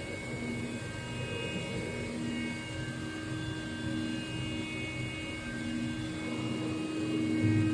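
Steady machine hum with a constant low tone and higher tones that swell and fade every second or so.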